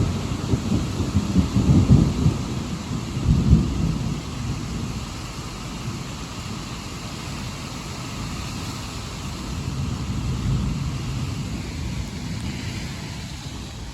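Steady rain falling during a thunderstorm, with a loud, uneven low rumbling through the first four seconds and a weaker swell of it near the end.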